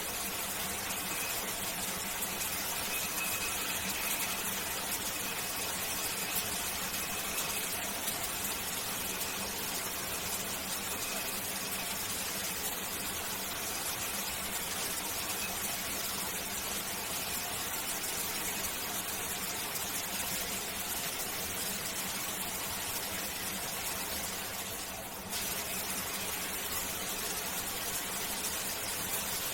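Shower water spraying steadily, an even hiss, with a faint high whine in the first ten seconds or so. The spray thins briefly and comes back suddenly about twenty-five seconds in.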